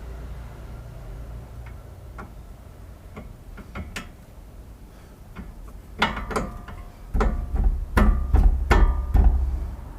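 Hand wrench work on car suspension nuts: scattered light metallic clicks and ticks, then a louder bout of clanking and rattling for the last few seconds.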